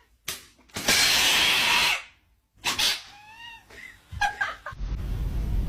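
A cat hissing for about a second, followed by a few short, high, bending calls.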